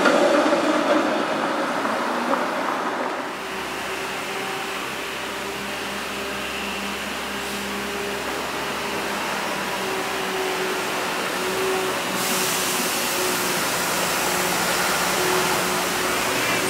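SEPTA Kawasaki light-rail trolley running on street track: a steady hum with a faint held whine over street traffic noise. The sound shifts abruptly about three seconds in, and again about twelve seconds in, where a brighter hiss comes in.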